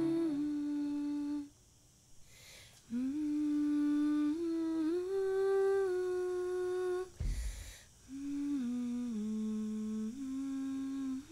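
A single voice humming a slow tune in held notes that step up and down, with two short breaks between phrases.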